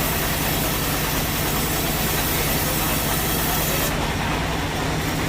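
Sawmill machinery running steadily, without a cut: a low, even engine-like hum under a hiss.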